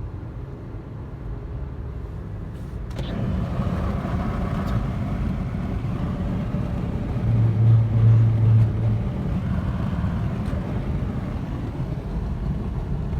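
A car on the move: steady low engine and road rumble that grows louder after a click about three seconds in, with a brief low pulsing hum near the middle.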